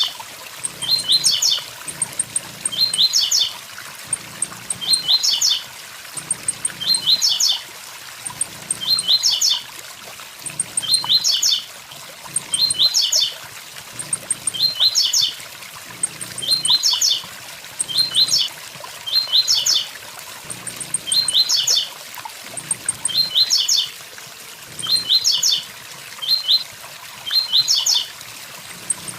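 Blue-black grassquit (tiziu) singing its 'tui tui zel zel' song, a short phrase of quick rising and falling notes repeated evenly about every two seconds, over the steady rush of a waterfall.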